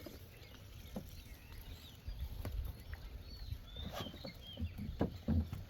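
Scattered knocks and low water sounds of a wooden boat moving on flood water, with a few faint bird chirps about halfway through.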